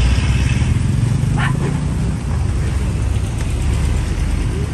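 Steady low traffic rumble of a busy street, heaviest for the first couple of seconds. One short, high yelp from a dog comes about a second and a half in.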